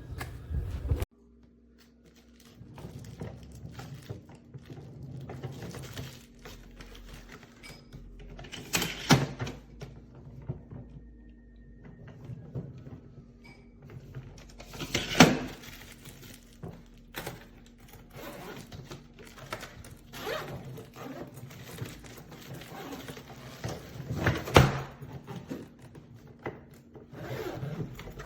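Three loud knocks, spaced several seconds apart, among lighter clicks and handling noise, over a steady low hum.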